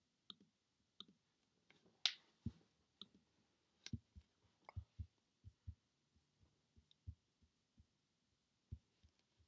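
Faint, scattered clicks from navigating a computer: a few sharp clicks, the loudest about two seconds in, then a run of soft low taps while a web page is scrolled.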